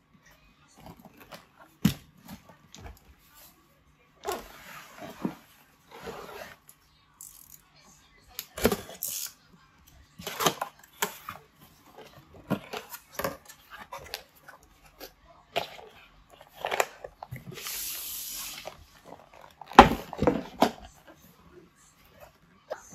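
Cardboard packaging being handled: irregular taps and knocks of box panels, with two longer stretches of cardboard sliding and scraping as the inner box comes out of the shipping box.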